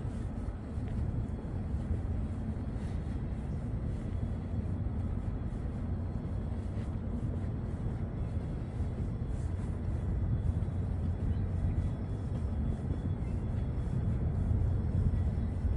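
Outdoor ambience: a steady low rumble with no distinct events standing out.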